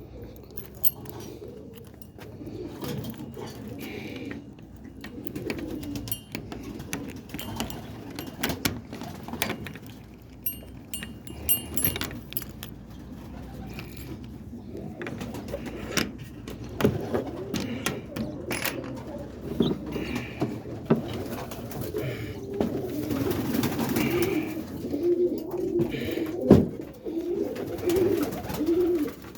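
Roller pigeons cooing in their loft, the cooing getting louder and busier in the last few seconds, with scattered clicks and knocks among it.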